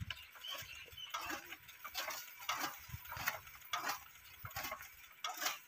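Hand-cranked flywheel chaff cutter chopping green fodder, turned by hand instead of by its electric motor. It gives a slightly uneven series of short, crisp chopping strokes, roughly two a second, as the blades pass through the fodder.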